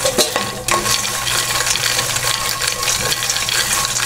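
Wooden spatula stirring roasted lotus seeds (phool makhana) around a stainless steel pan, a dense clatter of light seeds knocking and scraping on the metal.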